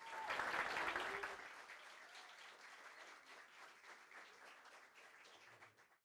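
Audience applauding: a dense patter of many hands clapping, fullest in the first second or so, then thinning and fading away before cutting off at the end.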